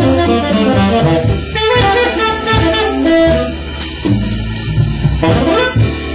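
Live straight-ahead jazz: a tenor saxophone playing a melodic line over bass and drum kit.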